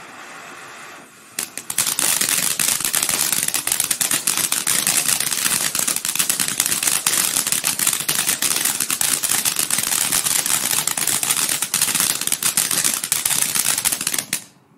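A ground firework fountain hissing for about a second, then a crackling ground firework going off with a dense, rapid rattle of crackles and pops for about thirteen seconds, which stops abruptly near the end.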